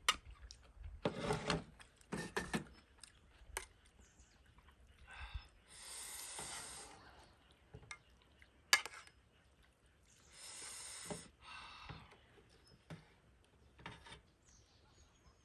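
Eating instant ramen: chewing, two longer hissing sounds about six and eleven seconds in, and a few sharp clicks.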